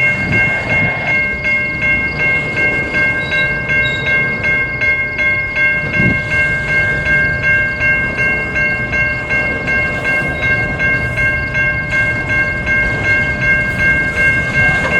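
Grade-crossing warning bell ringing steadily, about four strokes a second, over the rumble of a CN intermodal freight train rolling slowly past.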